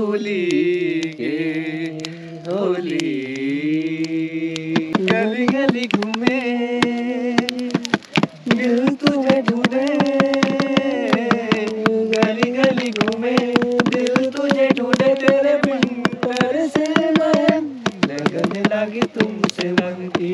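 Garhwali folk music with no words sung: a held, wavering melody, joined about five seconds in by a quick, steady percussive beat.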